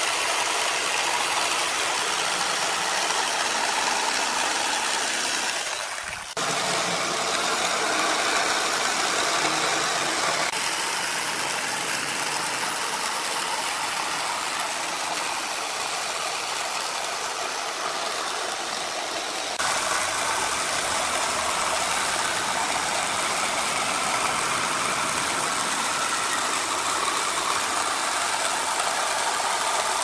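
Electric jigsaw running and cutting through pine board, a steady buzzing saw noise that drops out briefly about six seconds in.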